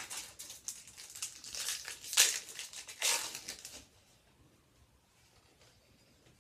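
Plastic wrapper of a hockey trading-card pack being torn open and crinkled, with a few loud crackles; it stops about four seconds in.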